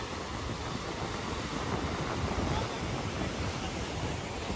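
Rough sea surf breaking and washing over rocks, mixed with wind buffeting the microphone: a steady rushing noise with a heavy low rumble.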